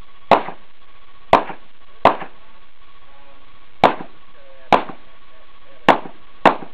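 Pistol shots fired during an IPSC stage: seven sharp shots at uneven spacing, some in quick pairs and others a second or more apart, each with a short echo.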